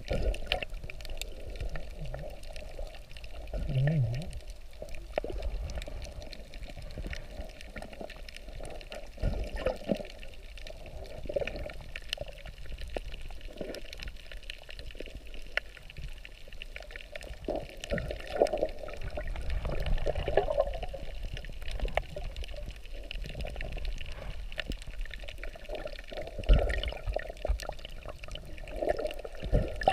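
Muffled water noise heard from under the surface: irregular sloshing and swirling, with a few dull thumps, the loudest near the end.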